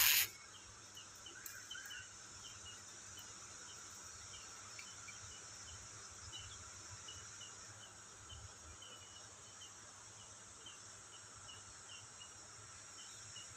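Insects droning steadily in the forest, with a short high chirp repeating about twice a second. A brief loud burst of noise at the very start.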